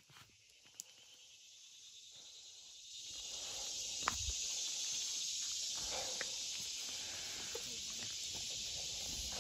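Steady rushing hiss of fast-flowing water, swelling over the first three seconds and then holding even. Footsteps scuff and knock on rock a few times, one clearer knock about four seconds in.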